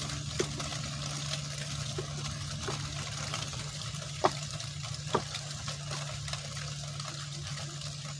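Steady low hum under an even hiss that the tagger hears as water, with scattered sharp clicks; the two loudest come about four and five seconds in.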